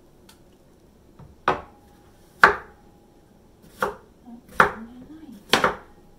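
Kitchen knife chopping ripe persimmon on a wooden cutting board: five sharp knocks of the blade hitting the board, spaced about a second apart.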